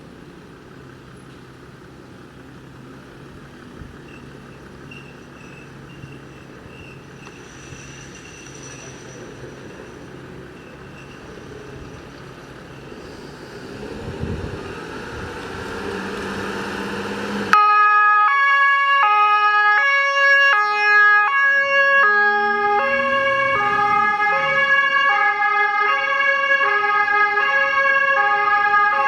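Street and engine noise growing louder as a vehicle draws near. About 17 seconds in, a German fire engine's two-tone siren (Martinshorn) cuts in suddenly and alternates loudly between its two notes, a change of note roughly every two-thirds of a second.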